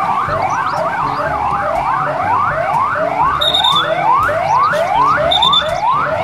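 Police car sirens sounding in quick rising sweeps, about two a second, several overlapping at first, over a low rumble of passing cars. A short high beep sounds twice.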